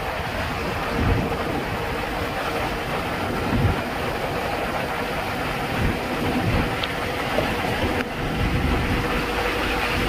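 Steady rush of wind and road noise from a moving vehicle, with wind buffeting the microphone in low gusts several times and a faint steady hum underneath.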